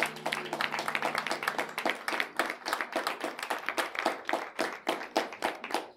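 A small audience applauding, the clapping thinning out toward the end. A held low musical chord underneath fades out about two seconds in.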